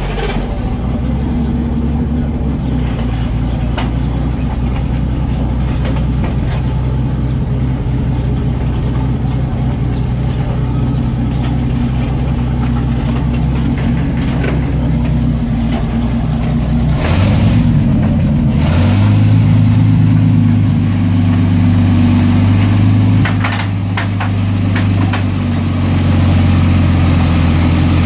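Jagdpanther tank destroyer's Maybach HL230 V12 petrol engine running under load as the tank climbs the ramps onto a low-loader trailer. About two thirds of the way through it revs up and then holds a higher, steady note, with a short dip in level shortly after.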